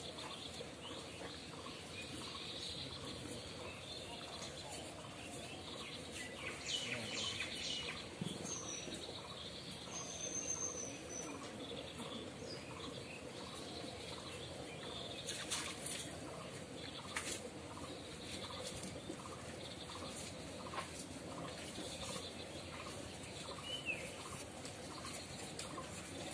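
Birds calling: a faint call repeating evenly about twice a second, with short chirps now and then. A few brief sharp noises stand out.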